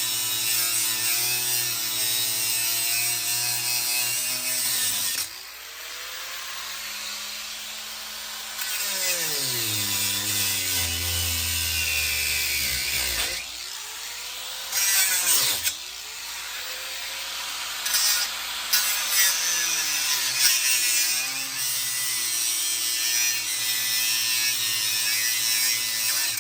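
Electric power tool at work, its motor falling sharply in pitch and speeding up again several times, with a harsh cutting hiss over it. It stops abruptly at the end.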